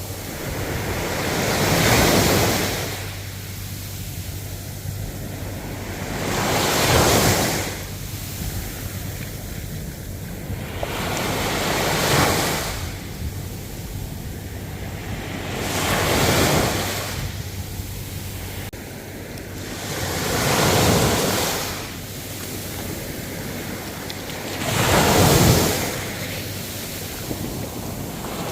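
Ocean waves washing in, the surf swelling and falling back six times, about every four to five seconds.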